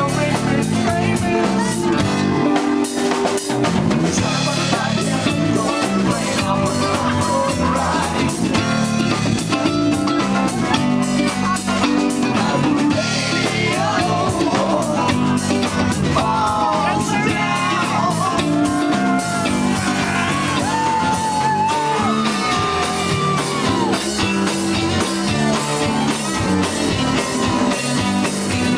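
Live rock band playing: drum kit keeping a steady beat under electric guitar, with singing and bending lead lines in the middle of the passage.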